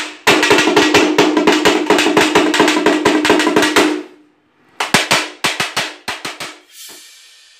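Background music of fast drumming: rapid drum strokes, about eight a second, over a held tone, breaking off about four seconds in, then a shorter run of strokes that thins out and fades.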